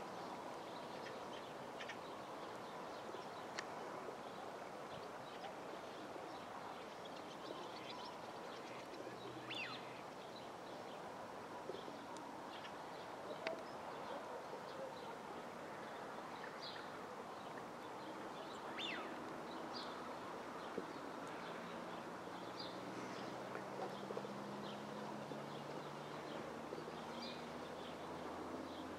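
Open wetland ambience: scattered short bird calls and chirps over a steady background hiss. Over the last several seconds a low drone comes in and slowly grows louder.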